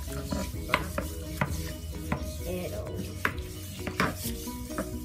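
A dish brush scrubbing a lizard's water bowl in a stainless-steel sink of soapy water, with about five sharp scrapes and knocks spread through. Light background music plays under it.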